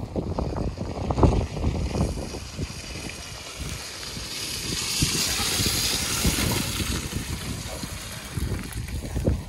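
Toyota RAV4 hybrid SUV approaching and passing on a grassy dirt track, its tyre noise swelling to a hiss a little past halfway. Wind buffets the microphone near the start and the end.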